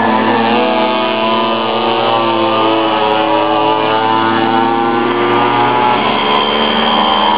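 Several pocket bike engines running at once, their notes slowly rising and falling as the riders change speed.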